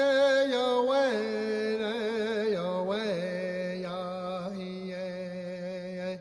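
Solo wordless chanting: one voice holds long notes that step down in pitch, with wavering ornaments between them, and stops right at the end.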